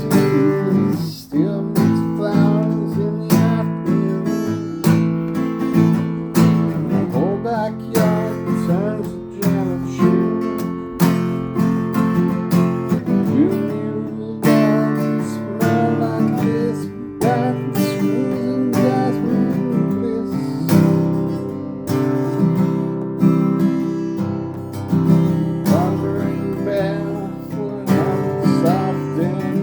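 Acoustic guitar strummed in a steady rhythm, with a melody line sliding in pitch above the chords.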